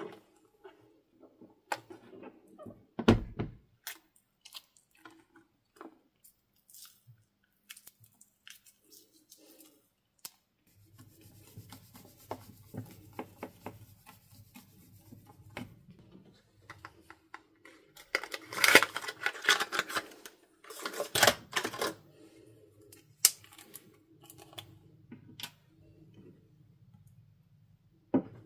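Foam for fluffy slime being stirred and folded in a plastic bowl with a spatula and a small stirrer: soft squishing and scraping with scattered clicks. There is a sharp thump about three seconds in, and two louder stretches of squishing and scraping a little past the middle.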